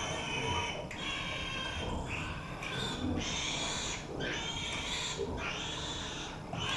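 Pigs squealing: a run of high-pitched squeals, about one a second.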